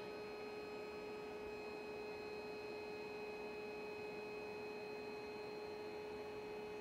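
Electric air pump of an inflatable air mattress running with a steady, even hum while inflating the mattress.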